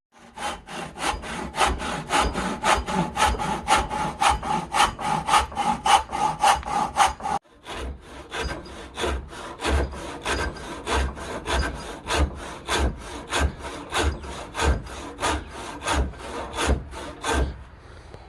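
Hand rip saw, an 1870s H. Disston & Sons, cutting wood with quick, even strokes, about three a second. A ringing note sounds through the first half, and there is a brief break about halfway.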